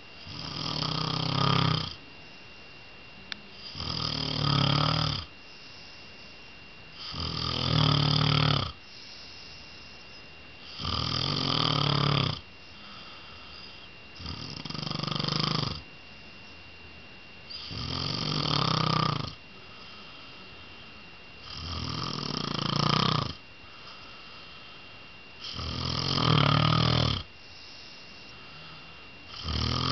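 A man snoring in a slow, regular rhythm: one snore about every three and a half to four seconds, each swelling louder over a second or two and then stopping sharply. A faint steady high whine runs underneath.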